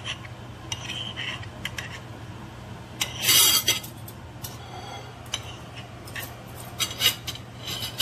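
Steel knife and fork scraping and clinking on a ceramic plate while cutting a steak, with the loudest scrape about three seconds in and scattered clicks before and after.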